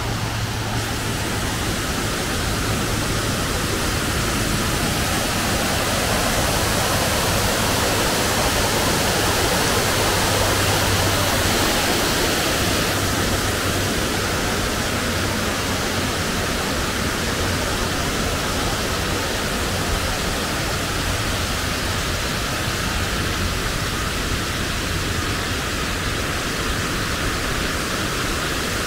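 Steady rushing of a stream flowing below and beside the path, a little louder about halfway through.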